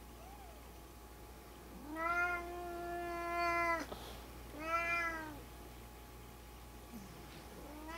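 Cat meowing twice: a long, level meow of about two seconds, then a shorter one that rises and falls in pitch.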